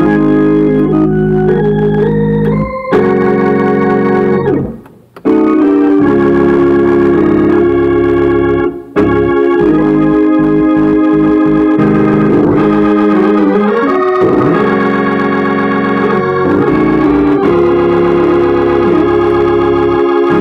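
Organ playing a gospel worship song in full sustained chords, with a quick downward sweep into a brief break about five seconds in and another short drop near nine seconds before the chords carry on.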